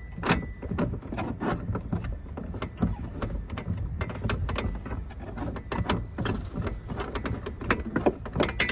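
Irregular clicking and scraping as the round thumbscrew bolt holding a Jeep Wrangler's front roof panel to the roll cage is twisted loose by hand, several clicks a second.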